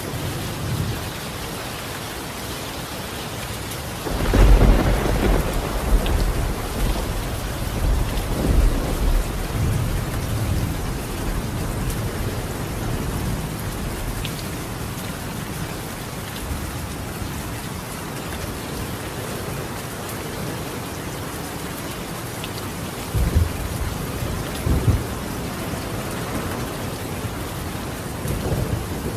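Steady rain falling on a tiled roof, with a loud roll of thunder about four seconds in that rumbles on for several seconds, and more distant rumbles near the end.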